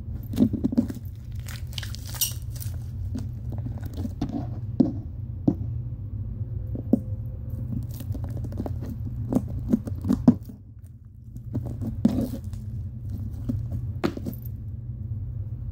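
Hands squishing and kneading fluffy slime: irregular wet clicks, pops and crackles. A steady low hum runs underneath.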